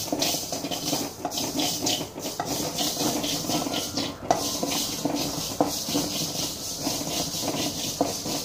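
Spatula scraping and stirring fenugreek seeds as they dry-roast in a hot kadai, a steady scratchy rasp with a few sharper knocks of the spatula on the pan.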